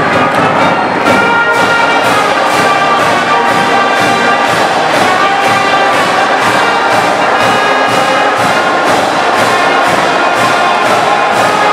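School marching band playing: trumpets, trombones and sousaphones holding sustained notes over a steady drum beat.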